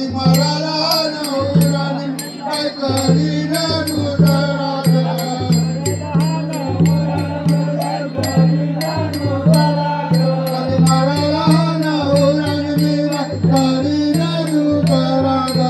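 Konkan Naman folk music: voices singing together over a two-headed barrel drum playing a steady low beat, with a regular high ticking keeping time.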